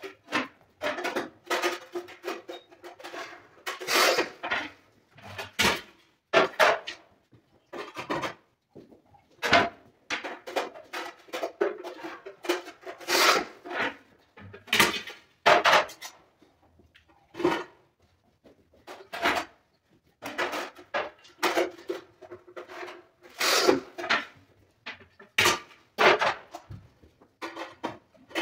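Large porcelain floor tiles being scored and snapped on a manual rail tile cutter, then handled and laid on a tiled floor. There is a long series of separate scrapes and hard ceramic knocks, many ringing briefly.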